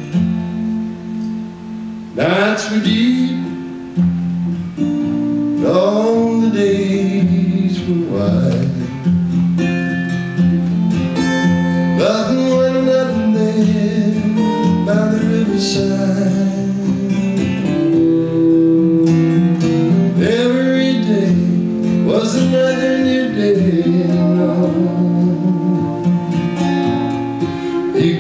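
Live country music: an acoustic guitar strums chords while a steel guitar plays sliding notes that swoop up and down in pitch over them.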